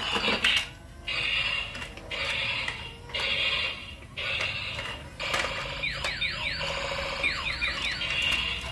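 Battery-operated transforming robot truck toy sounding its electronic effects: an alarm-like tone pulsing about once a second, then a string of quick rising zaps from about five seconds in as it starts to transform.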